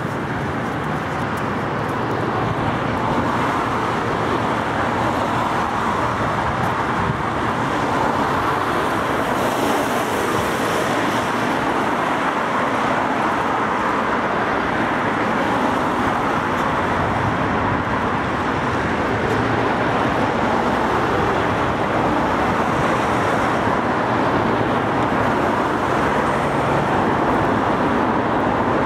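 Steady road traffic: cars running along the road, a continuous hiss of tyres and engines that swells a little as vehicles pass.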